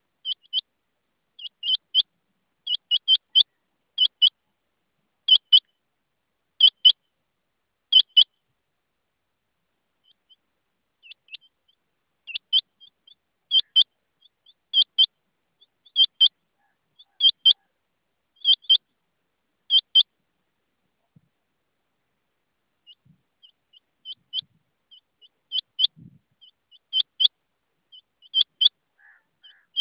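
Rain quail calling: sharp, high double notes repeated about once a second, in bouts separated by short pauses.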